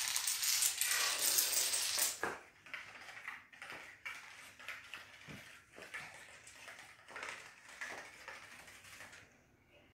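A long chain of dominoes and Uno cards standing on end toppling one after another across a hard floor: a dense, rapid clatter for about two seconds, then a thinning run of lighter ticks that dies away near the end.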